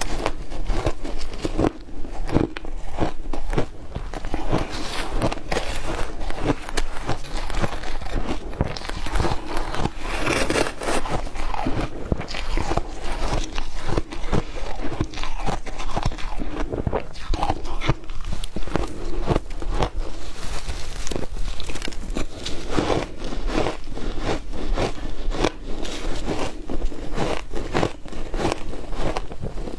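Ice being bitten and crunched between the teeth, a dense run of crackling cracks and crunches that goes on without a break.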